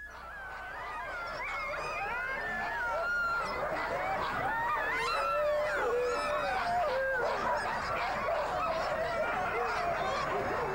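A pack of harnessed sled dogs yelping, howling and barking all at once, many overlapping high calls sliding up and down. The chorus swells over the first few seconds and then holds steady.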